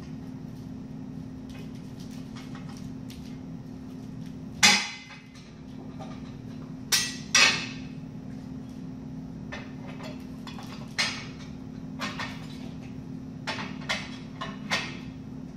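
Steel truss plates (1/4" and 3/16" plate) clanking and clinking against each other as they are fitted together by tab and slot: a dozen or so scattered knocks, the loudest about four and a half seconds in, over a steady low hum.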